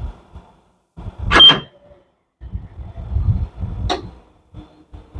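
Hansshow power frunk on a Tesla Model Y worked from the phone app: its warning beeper gives one short high beep about a second in, then the front trunk lid is lowered by its electric struts and latches with a sharp click about four seconds in.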